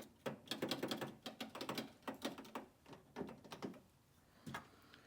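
Irregular clicks and light knocks of small parts being handled, thick and fast for about three seconds, then a couple more near the end.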